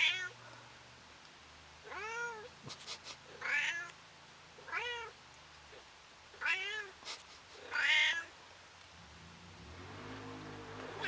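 A cat meowing about six times, each call rising then falling in pitch, with a second or two between calls. A low drone rises near the end.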